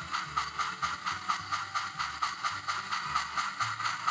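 Sound-equipped HOn3 model 2-8-0 steam locomotive chuffing at a steady beat, about five chuffs a second, from its onboard speaker as it runs past. Low shifting tones sound underneath.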